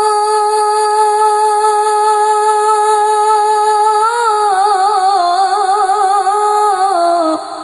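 Arabic devotional song: a singer holds one long note, which breaks into a wavering, ornamented run about four seconds in and ends just before the close.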